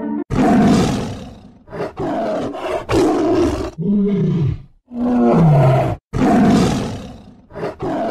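Tigers roaring repeatedly: a string of about six loud roars and moaning calls, two of them falling in pitch.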